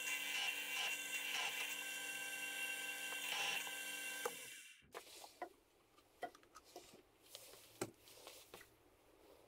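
Pillar drill running at about 1000 RPM, a 10.7 mm tap drill cutting down into a clamped metal block, with a steady motor whine. The drill stops about four and a half seconds in, followed by faint clicks and a few light knocks of tools being handled.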